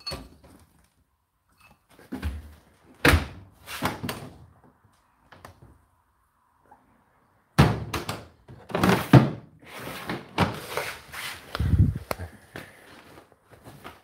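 Thuds and clunks from handling domestic laundry appliances, among them a front-loading washing machine's door being pushed shut. There are a few separate knocks early, a short lull, then a busier run of knocks and clatter through the middle and later part.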